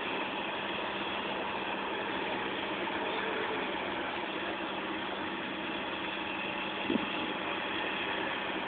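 Small crawler bulldozer's engine running steadily, with one brief knock about seven seconds in.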